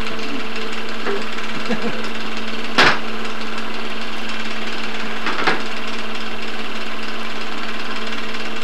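Film projector running with a steady whirring hum. A sharp click sounds about three seconds in, and a fainter one about two and a half seconds later.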